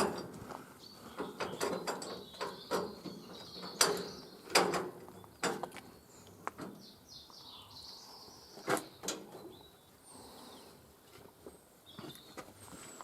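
Irregular metal clanks and knocks as a bandsaw mill's log dogs and supports are set and clamped against the log, with faint bird chirps behind.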